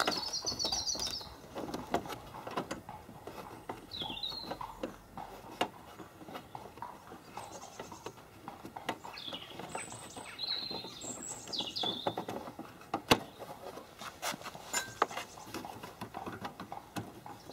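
Birds chirping in a few short bouts over soft rustling and small clicks of a socket being turned by hand on a 10 mm bolt behind a car's wheel-arch liner, with one sharp click about two-thirds of the way through.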